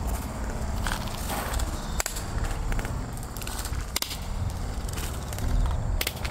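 A few sharp single handclaps, about two seconds apart, over a steady low rumble.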